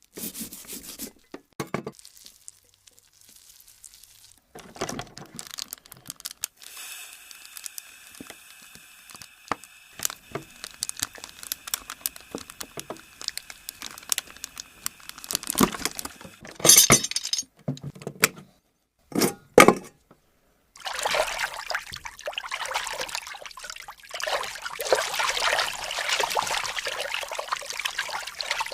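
Foley sound effects: a run of separate short knocks, clinks and noisy bursts, then a continuous rushing, pouring sound like liquid for the last third.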